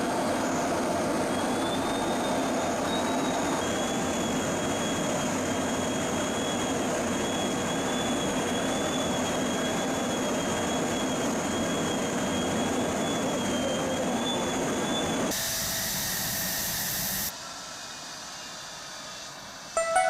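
Steady noise of an F-16 fighter jet in flight: a dense rushing hiss with a thin, slightly wavering high whine. About fifteen seconds in it switches abruptly to a brighter hiss, then drops to a quieter hum about two seconds later.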